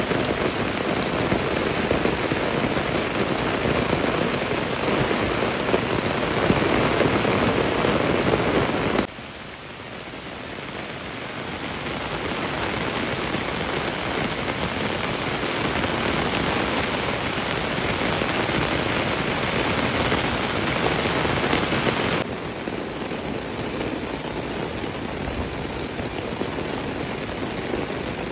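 Heavy rain falling steadily, with rainwater running down a muddy path at first. The sound drops suddenly about nine seconds in, builds back up over a few seconds, and drops a little again about two-thirds of the way through.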